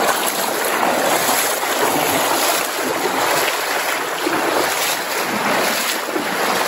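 Fast, shallow creek water rushing and splashing around legs wading through it: a steady, loud rush.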